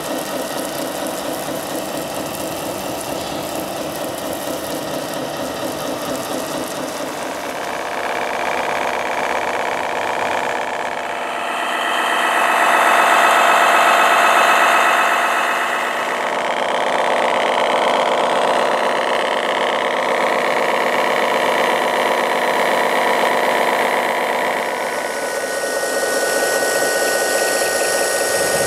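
Fire-truck engine sound running steadily, getting louder and higher about halfway through, then settling back to a steady run. Near the end, a couple of thin steady tones join it.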